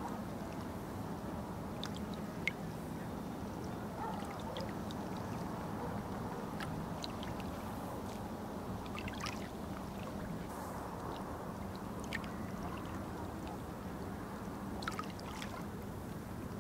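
River water lapping and gurgling close by, with small scattered plinks and drips over a steady low hum.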